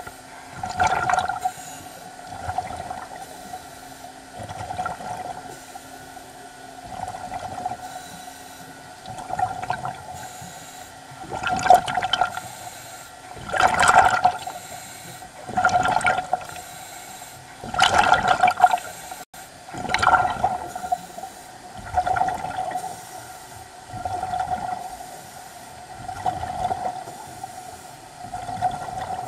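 A diver's underwater breathing regulator heard close up: regular breaths about every two seconds, each a rush of air and bubbles with a steady hum, the strongest in the middle stretch.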